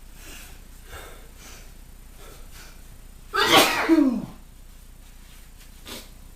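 A man sneezing once, loudly, about three and a half seconds in, the voice in it dropping in pitch at the end, after a few faint breaths: a hay fever sneeze brought on by pollen.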